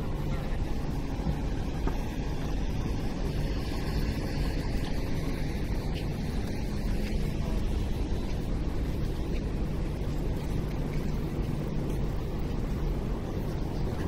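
Busy city street ambience: a steady low rumble with faint background hubbub and no distinct events.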